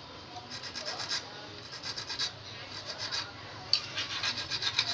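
Small hand file rasping on a steel fishing hook, sharpening its point and barb: several short runs of quick back-and-forth strokes, the densest near the end.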